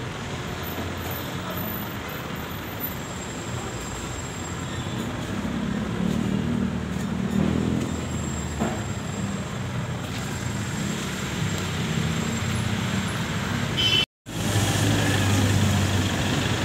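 Diesel engines running steadily, with a low drone from the truck and wheel loader and traffic noise behind. The sound cuts out for a moment about 14 seconds in. After that the Isuzu Elf light truck's engine hums louder and closer.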